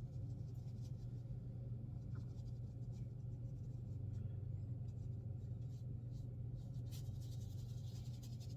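Soft scratching strokes of a watercolour swirl mop brush across rough watercolour paper, clearest near the end, over a steady low hum.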